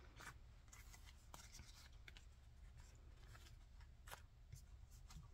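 Near silence: faint room hum with a few soft ticks and rustles from paper sticker sheets being handled.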